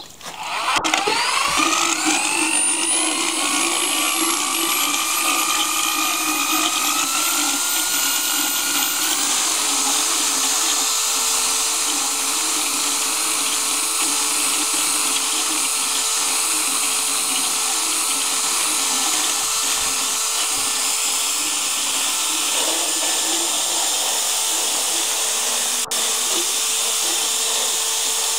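Motorized equine dental float spinning up with a rising whine, then running steadily as it grinds a horse's teeth; its pitch shifts slightly about nine seconds in.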